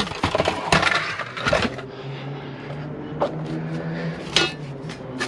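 Knocks and clatter of salvaged metal computer equipment being handled in an SUV's cargo area, then a steady low hum and one short sharp squeak-like knock near the end.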